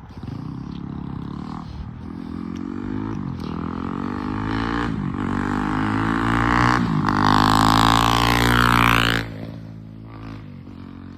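A loud motor vehicle's engine passing close by: a pitched drone that builds steadily and is loudest about nine seconds in, then drops away suddenly.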